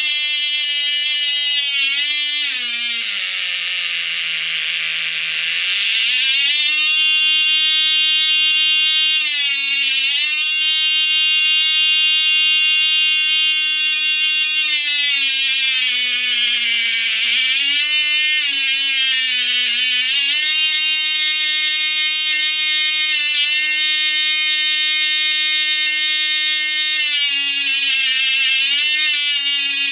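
Cox Medallion .051 two-stroke glow model engine running at high speed with a high-pitched whine. About three seconds in the RC throttle is closed and the pitch drops to roughly half, then it is opened back up and the pitch climbs again; shorter dips in pitch follow around halfway through and near the end, as the throttle is blipped.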